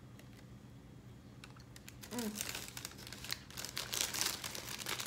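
Paper bag crinkling and rustling as it is handled, starting about halfway through.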